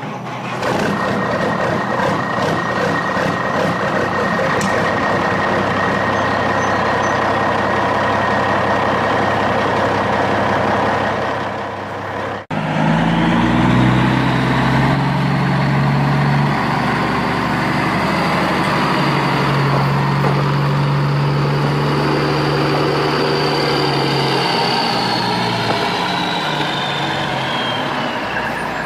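A truck engine sound runs steadily throughout. It breaks off abruptly about twelve seconds in and resumes as a deeper, steady engine hum. Near the end a high whine falls in pitch.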